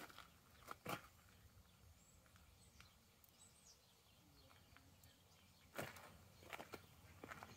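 Near silence: quiet outdoor ambience with a few faint crunching steps on dirt and gravel, and faint bird chirps about three seconds in.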